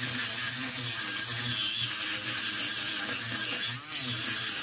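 Dremel Stylo rotary tool running at a low speed setting, its small flap sanding disc against hard wood. The motor's hum wavers as it bogs down under the load, over a light hiss of sanding, and briefly drops near the end.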